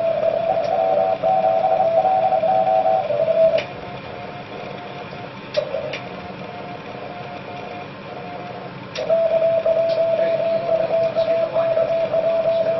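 Morse code (CW) tones from a shortwave transceiver, a single pitched beep keyed on and off over steady band hiss. The keying fades weaker for several seconds in the middle and comes back strong near the end, with a few sharp keyboard clicks on top.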